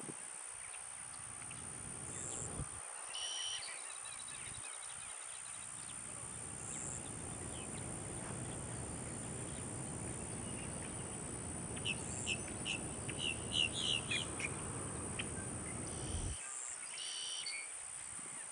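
Wetland birds calling over a steady low rumble: one short call about three seconds in, a quick run of chirps around twelve to fourteen seconds, and another call near the end.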